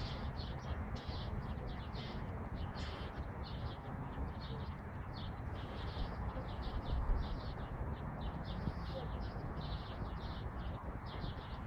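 Birds chirping outdoors: many short high chirps, several a second, over a steady low rumble.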